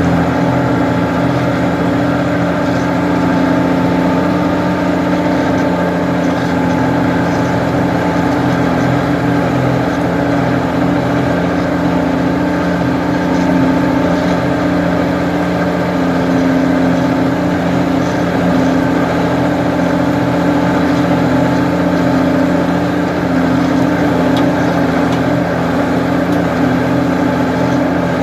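Ford 550 backhoe engine running steadily at a constant speed, a loud even drone with no change in pitch.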